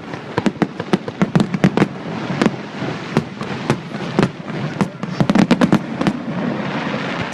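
Fireworks going off in a rapid, irregular string of sharp bangs and crackles, thickest in two clusters, near the start and about five seconds in.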